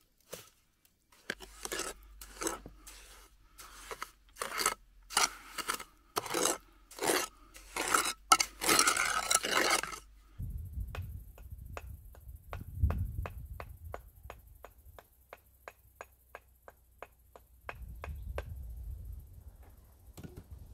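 Mason's trowel scraping and spreading wet mortar over a stone wall, in repeated short strokes about one and a half to two a second. About ten seconds in this gives way to faint, even ticks about twice a second over a low rumble.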